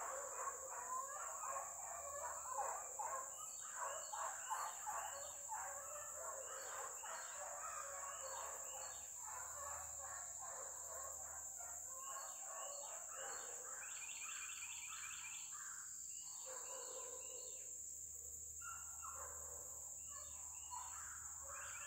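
A pack of beagles baying on a rabbit track: many short, overlapping calls, about two a second, thinning out after about twelve seconds. A steady high insect drone runs throughout, and birds chirp.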